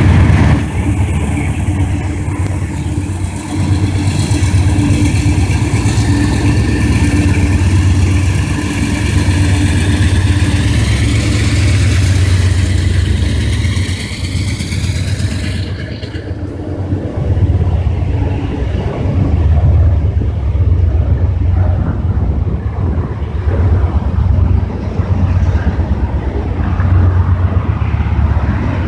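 Canadian Pacific freight train passing close by: the diesel locomotive's engine drones low under a high whine, which cuts off suddenly about halfway as the locomotive goes by. The double-stack container cars then rumble past on the rails.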